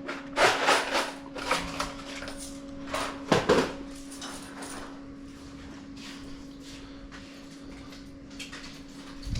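Clattering knocks and rattles, like a door or panel being handled, in the first four seconds, the loudest near the start and about three and a half seconds in. A steady low electrical hum runs underneath.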